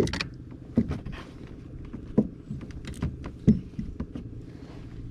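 Sharp knocks and clunks against a plastic fishing kayak, several of them at uneven gaps, over a low steady hum.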